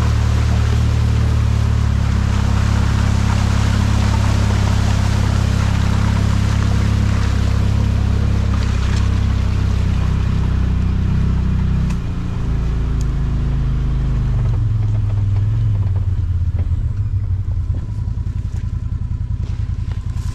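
Side-by-side UTV engine running steadily under way, with a broad rush of tyre and wind noise over it; about twelve seconds in the engine note drops and the rush fades as the vehicle slows to idle.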